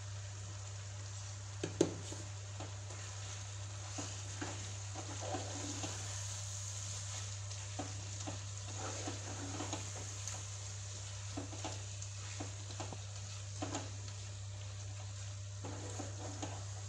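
Chicken pieces frying with ground spices in a nonstick pan, sizzling steadily while a wooden spatula stirs and scrapes through them, with frequent light knocks against the pan and a sharper knock about two seconds in. A steady low hum runs underneath.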